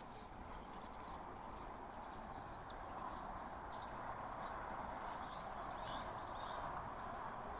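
Small birds chirping again and again over a steady rushing background hiss.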